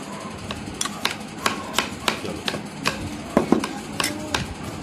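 Metal spoons clinking and tapping against ceramic plates and bowls during a meal: a string of sharp, irregular clicks.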